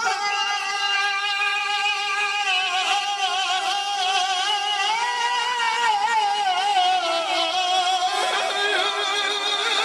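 A man's voice singing a long, drawn-out note of a naat through a microphone and PA, with a wavering vibrato. The pitch glides up about halfway through and sinks back down.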